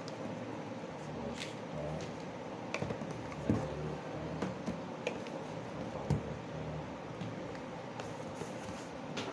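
Plastic supplement bottles and a cardboard box being handled: a few light knocks and clicks as bottles are taken out of the box, over a steady low background hum.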